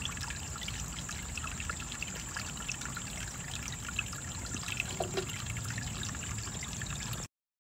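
Steady trickling water with scattered faint ticks, cutting off suddenly about seven seconds in.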